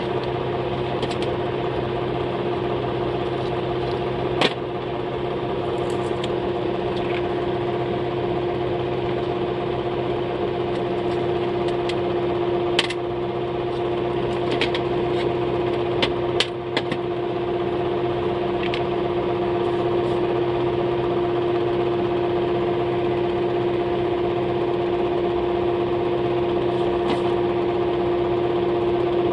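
A steady machine hum holding one constant pitch, with a few scattered sharp clicks and taps over it.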